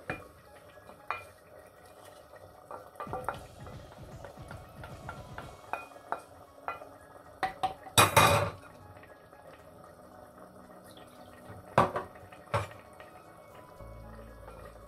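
Wooden spatula scraping and tapping a steel pan as wet masala is scraped out into a clay pot, with scattered knocks of wood against metal and clay. The loudest is a short, harsh scrape about eight seconds in, with two more sharp knocks near twelve seconds.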